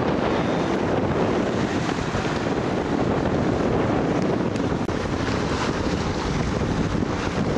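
Steady wind buffeting the microphone on an open boat, mixed with water noise, with a brief dropout about five seconds in.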